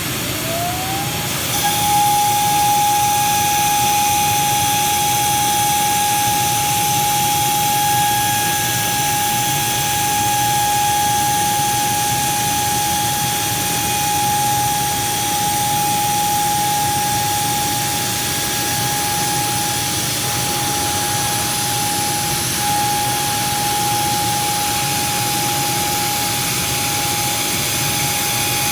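An electric motor spins up with a rising whine, then runs steadily at one high pitch over a bed of whooshing noise.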